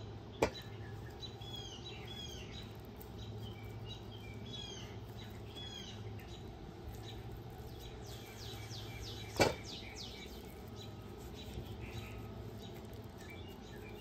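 Songbirds chirping in the background with repeated short arching notes, over a steady low hum. Two sharp taps stand out as the loudest sounds, one just after the start and another about two-thirds of the way through.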